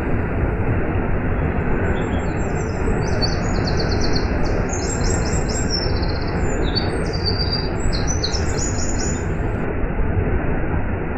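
Waterfall rushing with a steady, even roar. Over it a small bird sings a run of quick high chirps and short trills, which stop near the end.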